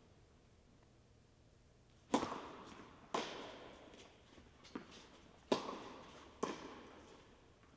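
A tennis rally: balls struck by racquets and bouncing on a hard court, about five sharp pops roughly a second apart, each with a short echo from the indoor tennis hall.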